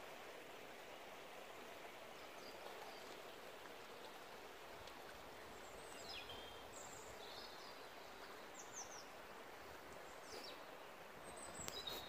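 Faint, steady babble of a shallow river running over stones, with a few brief bird chirps now and then.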